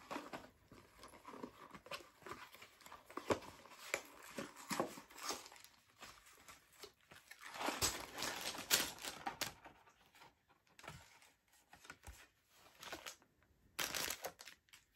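A cardboard LEGO box being torn open at its perforated tab and its plastic bags of bricks tipped out: tearing cardboard and crinkling plastic in irregular bursts with short pauses, busiest about eight seconds in.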